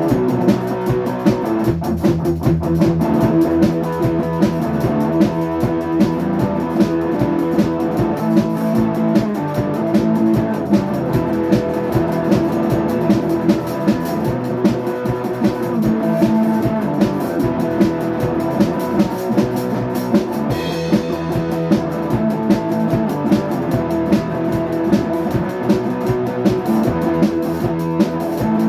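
Live rock band jamming: electric guitar and drum kit playing together with a steady beat.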